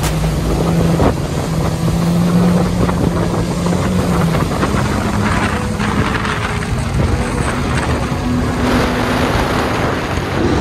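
Jet ski engine running at speed, its note shifting up and down a little, with wind buffeting the microphone and water rushing past the hull.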